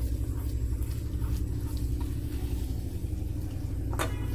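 A steady low hum, under a wooden spoon stirring boiling sugar syrup in a metal saucepan. The spoon knocks sharply against the pot once near the end.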